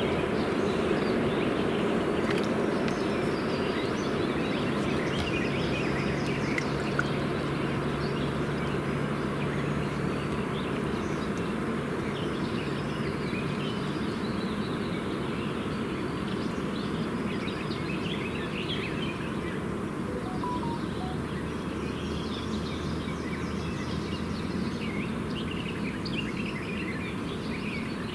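Steady outdoor lake ambience with scattered short bird chirps, and a faint low hum at times.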